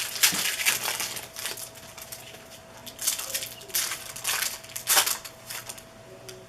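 Crinkling and rustling of trading-card pack wrappers and cards being handled, in two stretches of rustling bursts, over a faint steady hum.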